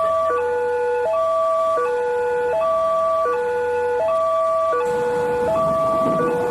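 Railway level-crossing warning siren sounding a steady two-tone alternation, a low and a higher tone each held about three-quarters of a second. A broad rushing noise joins about five seconds in.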